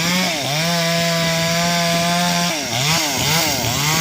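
Two-stroke chainsaw cutting into a tree, running at high speed and held steady for about two seconds, with its engine speed dropping and picking up again near the start and several times in the second half.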